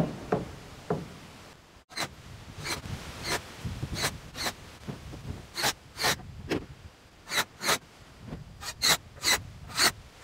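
A run of about fifteen short, irregular rasping scrapes, one after another. Three brief falling squeaks come first, then a sudden break about two seconds in.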